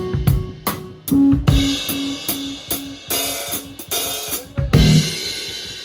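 Bass and drum kit playing together: snare, bass-drum and cymbal strokes over short, repeated bass notes. Near the end they land on one big accented hit, and a cymbal is left ringing and fading away.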